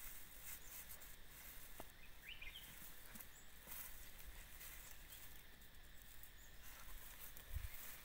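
Faint rural outdoor background with a couple of brief, faint bird chirps about two and a half seconds in, and a low bump on the microphone near the end.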